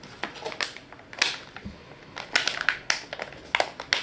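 Metallised anti-static bag crinkling in the hands as it is picked up and handled, in irregular sharp crackles.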